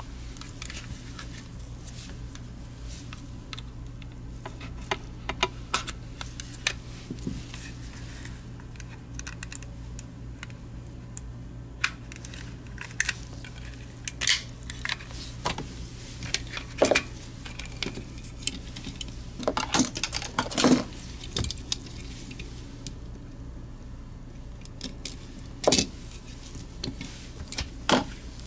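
Irregular plastic clicks, snaps and light scraping as the shell of a Razer Orochi V2 mouse is pried apart with a scalpel and its clips release, with a cluster of louder snaps about two-thirds through.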